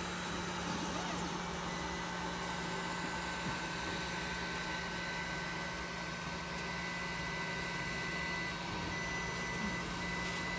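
Creality Ender 3D printer running mid-print: a steady whir from its fans and stepper motors with several steady whining tones, the highest of which cuts in and out.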